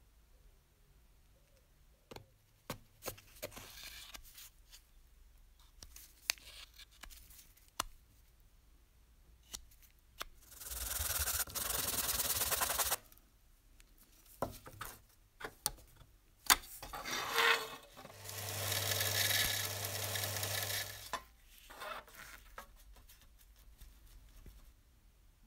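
A small metal part of a toy steam engine is rubbed by hand back and forth on a sheet of sandpaper laid flat, giving a rasping noise in two stretches of two to three seconds each. The second stretch has a low hum under it. Scattered small clicks and taps fall in between.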